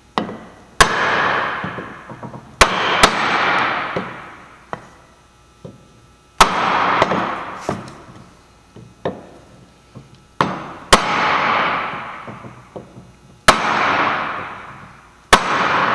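Hammer blows driving a new pinion seal into a Jaguar Salisbury rear differential housing through a block of wood: about seven hard strikes one to four seconds apart. Each strike is followed by a metallic ring that dies away over a second or so.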